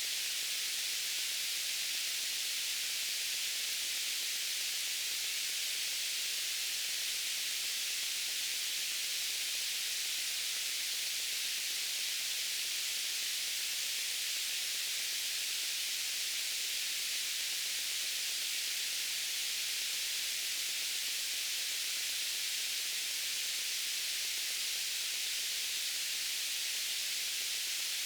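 Steady white noise: an even, unchanging hiss, bright and strongest in the upper range with little low end.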